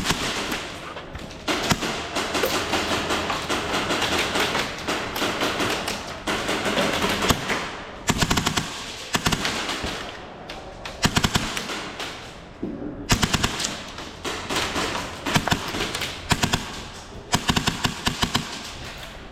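Airsoft guns firing rapid full-auto bursts of clicking shots, over and over, with brief lulls between strings of fire.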